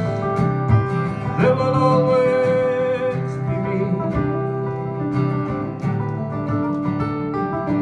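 Live acoustic folk music: an acoustic guitar strummed alongside a second guitar, playing an instrumental passage between sung lines.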